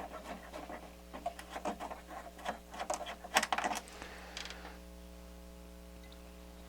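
Quick small clicks and scrapes of hands handling a protection fuse and its holder on the back panel of a vintage stereo receiver. They stop about four and a half seconds in, leaving a faint steady hum.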